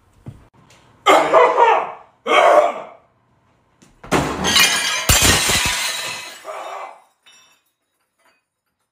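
Glass and crockery crashing and shattering: two loud crashes about a second apart, then a longer one starting about four seconds in with a heavy thud, clattering on for nearly three seconds.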